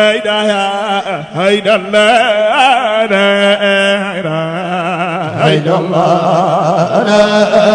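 A man chanting a zikr into a microphone, his voice wavering and gliding through long ornamented phrases over a steady low held tone.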